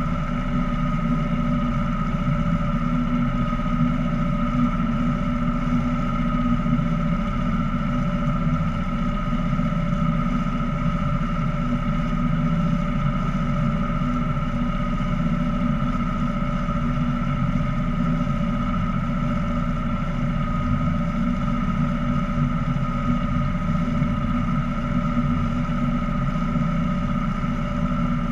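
Small boat's motor running at a steady speed: a low, even drone with a steady high whine over it and no change in pitch.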